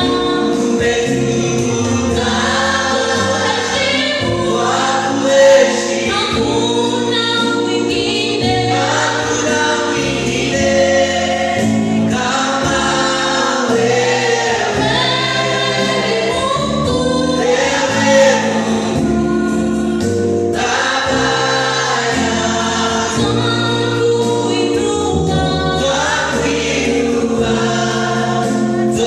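Gospel music with a choir singing over instrumental backing: sustained chords and a steady bass line.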